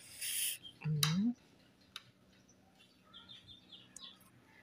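A short breathy hiss, then a brief rising vocal sound from a person about a second in. Around three to four seconds in comes a quick run of faint, high, rising bird chirps.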